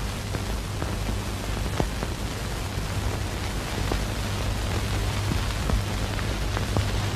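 Steady hiss with a low electrical hum and a few faint scattered clicks: the background noise of an old film soundtrack.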